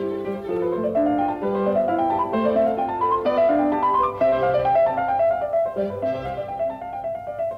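Background music played on piano, a melody of quickly changing notes.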